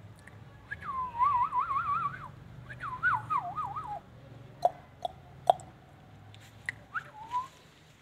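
Indian ringneck parakeet whistling two warbling phrases that waver quickly up and down in pitch, then a few sharp clicks and a short rising whistle near the end.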